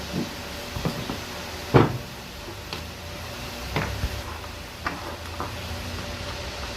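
Irregular knocks and clicks, about eight in all, the loudest about two seconds in, over a steady low hum.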